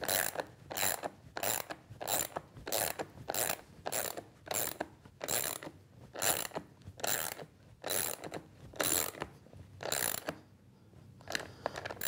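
Hand socket ratchet clicking in repeated back-and-forth strokes, about two a second, as it turns a bolt that threads a brass threaded insert into a plywood table. The strokes stop about ten seconds in, and a few fainter clicks follow near the end.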